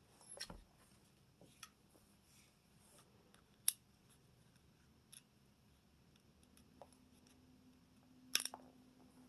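Sparse small clicks and taps of hard parts being handled while fitting grips and screws to a 1911 pistol, with two sharper clicks, one near the middle and one near the end.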